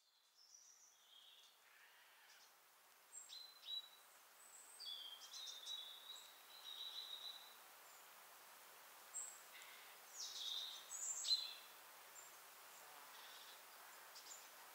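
Faint outdoor countryside ambience with birds chirping and calling on and off, fading in at the start. The loudest short, high calls come about three to four seconds in and again around ten to eleven seconds.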